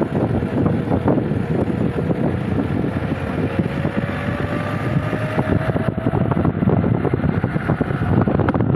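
Road vehicle driving along, its engine and tyre rumble heard from the cabin with wind buffeting the microphone at the open window; the engine note climbs slowly through the second half.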